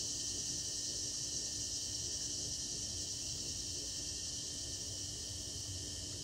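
Steady night ambience: a high, even chorus of insects, with a faint low hum beneath.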